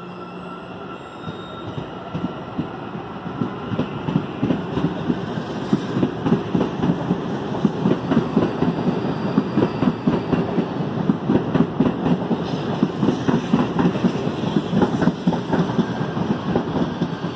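CPTM Série 9500 electric multiple-unit train pulling out and passing close by, its wheels clicking over the rail joints, the clicks growing louder and closer together as it gathers speed. A faint whine is heard at the start.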